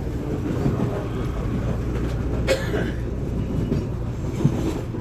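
Série C commuter trainset C53 running, a steady low rumble heard from inside the car. A sharp clack sounds about halfway through, and a smaller knock near the end.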